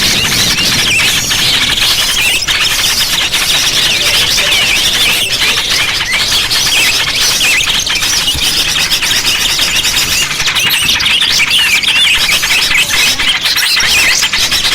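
A dense, loud chorus of many small birds chirping and twittering over one another without a break: a bird-lure (pikat) recording of noisy small birds, played to draw wild birds in.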